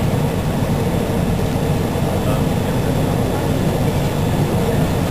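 Steady low rumble of exhibition-hall background noise, even in level with no distinct events.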